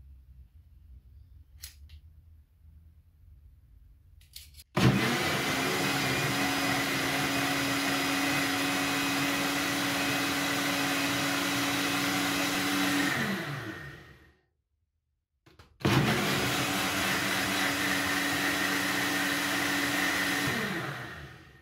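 NutriBullet personal blender blending a milk and banana mixture in two runs, about eight and five seconds long, with a short silence between. Each run starts abruptly, holds a steady motor pitch, and ends with the pitch falling as the motor spins down. A few faint clicks come before the first run.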